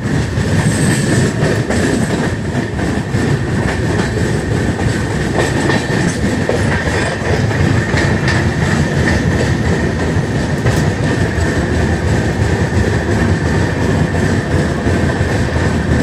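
Passenger train running along the track, heard from inside the coach: a steady rumble of wheels on rail with frequent clicks from the rail joints and a steady high whine.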